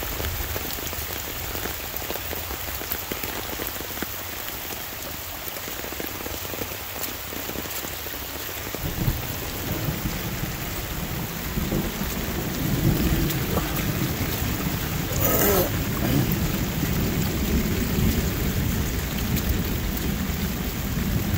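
Steady rain, with muddy runoff rushing down a rock-lined drainage ditch. About nine seconds in, a long, low rumble of thunder builds and rolls on to the end.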